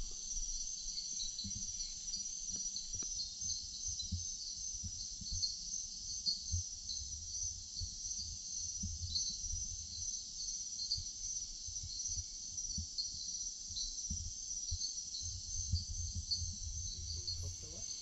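Night-time rainforest insect chorus: a steady high-pitched trilling with small repeating pulses in it, over irregular low rumbles and thumps.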